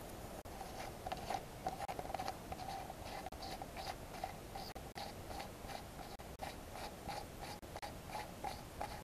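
Metal parts of a hand-built model steam engine ticking and rubbing with short squeaks, several times a second, as the piston is worked back and forth in its cylinder to check a fit that is still a little tight and binding.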